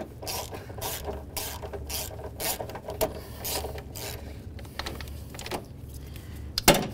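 Ratchet wrench clicking in short strokes as it backs out a body ground bolt, with a louder clack near the end.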